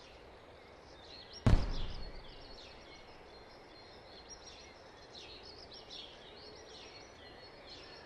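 Birds chirping faintly in the background, with a single loud thud about a second and a half in that dies away quickly: a cartoon sound effect of a plastic part dropping into a small dump truck's bed.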